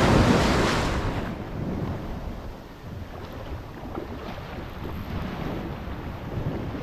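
Ocean surf washing around the angler: a swell of rushing water loudest in the first second, then a lower, steady wash, with wind buffeting the microphone.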